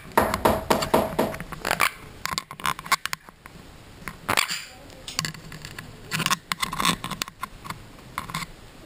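Green-cheeked conure tapping its beak against the camera in quick runs of sharp clicks, with short pauses between runs.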